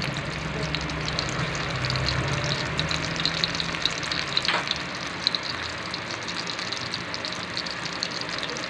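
Eggplant omelette topped with tuna and egg sizzling as it shallow-fries in oil in a wok: a steady frying hiss with many small pops. A low hum sits underneath and fades about halfway through.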